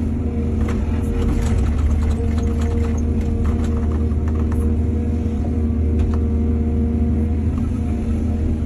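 Excavator's diesel engine running steadily under load, with scattered knocks and rattles through the first half and again about six seconds in.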